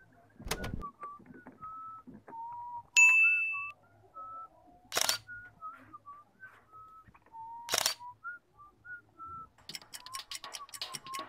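A person whistling a wandering tune of short notes while handling materials, with a few sharp knocks. About three seconds in comes a loud, short, high-pitched tone. Near the end, scissors snip through rexine and leather in a quick run of crisp clicks.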